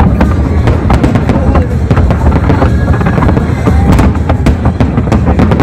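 A dense fireworks barrage: many shells bursting at once in a continuous rumble of booms, with rapid sharp cracks and crackles on top.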